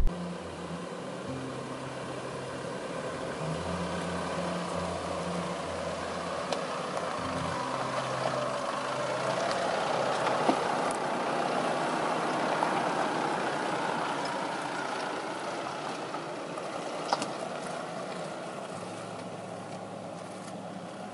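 Isuzu MU-X's 4JJ1 turbo-diesel engine running at low revs as the 4WD crawls slowly over sandstone rock on a bush track, its note swelling and easing with the throttle. There are a few sharp clicks along the way.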